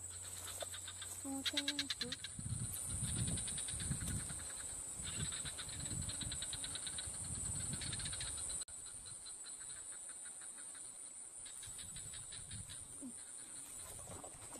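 Insects calling: a steady high-pitched drone with bursts of fast, pulsing chirps. A low rumbling noise runs through the first half and stops abruptly about eight and a half seconds in.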